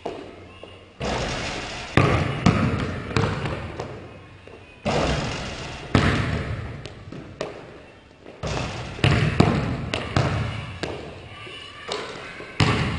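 Basketballs bouncing on a hardwood gym floor and smacking into players' hands as they are passed back and forth: a run of irregular sharp hits, each echoing on in the large gym.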